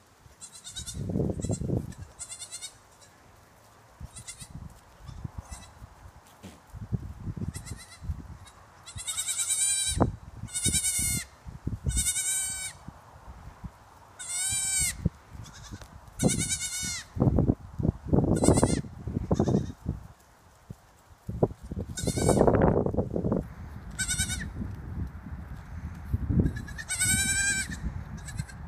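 Kinder goat kids bleating: a dozen or so short, high-pitched cries, most of them from about a third of the way in, with bouts of low rumbling noise between them.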